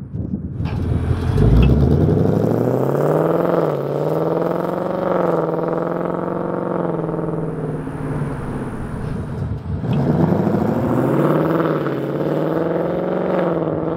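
2024 Ford Mustang Dark Horse's 5.0 L Coyote V8 running through a Corsa stainless double H-pipe, its factory resonator removed. The engine note climbs sharply about a second in, then holds with small rises and falls, dips briefly near ten seconds and picks up again.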